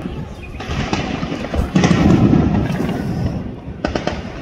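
Gunfire: sharp shots cracking out over a low rumble, one or two about a second and a half in and a quick cluster near the end.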